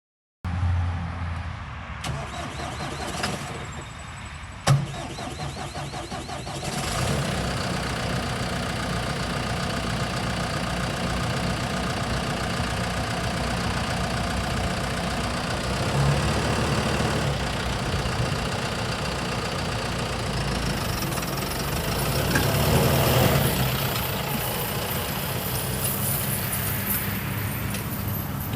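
John Deere 6115D tractor's diesel engine starting and then running steadily at idle, with a few clicks and one sharp knock in the first five seconds and a brief rise in engine speed about three-quarters of the way through.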